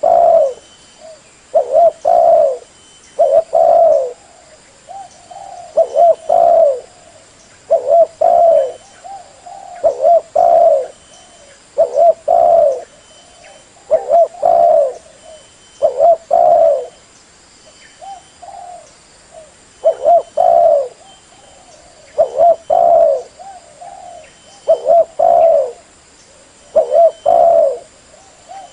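Spotted dove cooing, the decoy call used to lure wild doves: a short run of low coo notes repeated about every two seconds.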